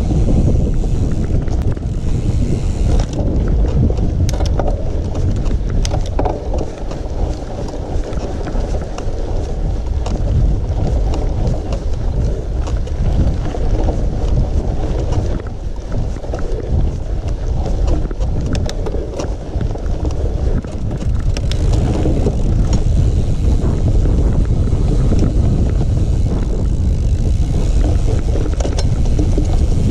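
Wind buffeting the microphone and tyre noise from a mountain bike being ridden off-road, with scattered clicks and knocks from the bike rattling over the trail.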